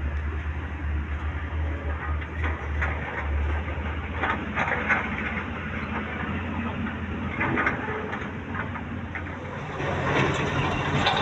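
Excavator's diesel engine running steadily with a low hum, with scattered knocks and clatter from the machine at work.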